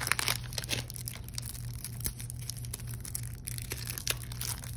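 Foil wrapper of a Magic: The Gathering Jumpstart booster pack being torn and crinkled in the hands. The crinkling is strongest in the first second, then turns into fainter scattered crackles as the cards are handled.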